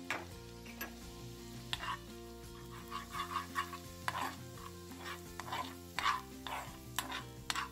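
Metal spoon stirring and scraping around a saucepan in irregular strokes, while dried mint, garlic and butter sizzle as they fry.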